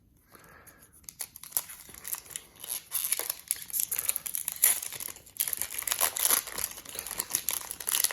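Foil wrapper of a Yu-Gi-Oh! booster pack crinkling as it is handled and torn open. It starts faint, builds about a second and a half in, and gets louder about three seconds in.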